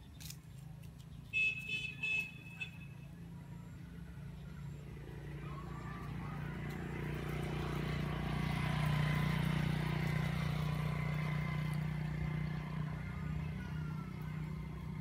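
A motor vehicle passing on a nearby road, its noise swelling for several seconds and then fading. Near the start there are three short, high-pitched beeps.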